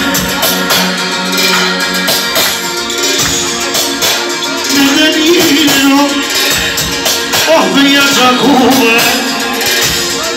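Loud live party music: a man singing through a handheld microphone over amplified accompaniment with a busy percussion beat.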